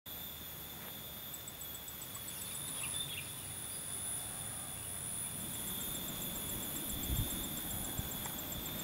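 Insects shrilling steadily in several high, even tones, with another insect's fast, regular chirping at about seven ticks a second. A brief low thump comes about seven seconds in.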